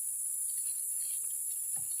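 Steady high-pitched chorus of insects such as crickets or katydids, with a faint short knock near the end.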